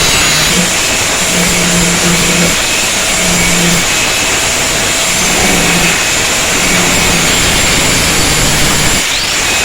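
Electric power tool running with a loud steady hiss and a low hum that breaks off and shifts slightly in pitch every second or so, with a thin high whine above.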